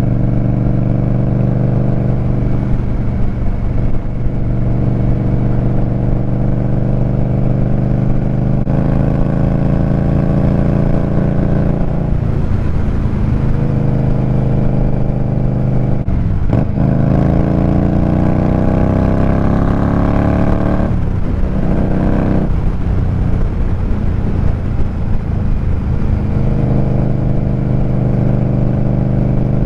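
Indian Scout Rogue V-twin motorcycle engine running through GP Shorty exhaust pipes while riding, loud. It holds a steady cruise, then revs up with rising pitch about halfway through, breaks off sharply twice as it changes gear, and settles back to a steady cruise near the end.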